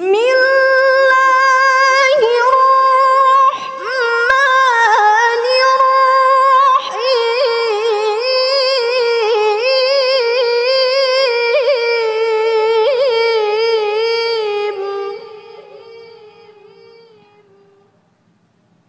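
A woman reciting the Qur'an in melodic tilawah style, amplified through microphones: one long, high, sustained phrase full of rapid ornamental turns, rising in pitch at the start. It fades away from about fifteen seconds in.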